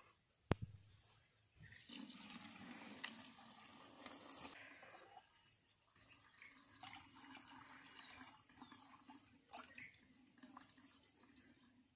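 Liquid being poured from a tin can through a plastic strainer into a plastic bucket, trickling and splashing in two spells with a short pause between. A single sharp knock about half a second in is the loudest sound.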